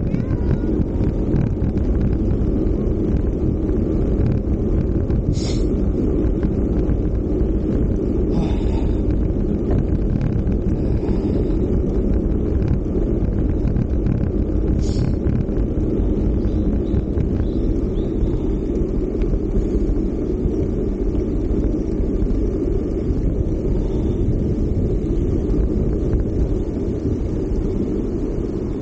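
Steady wind buffeting the microphone of an Insta360 ONE X2 action camera as a bicycle coasts downhill at speed, a loud low rumble. Two short high-pitched sounds break through, about ten seconds apart.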